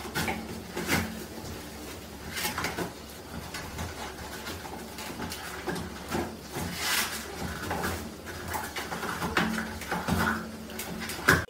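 A small white terrier tearing at a toilet paper roll: repeated rustling and ripping of paper as it pulls sheets off. The roll knocks in its holder, with a few short louder rips.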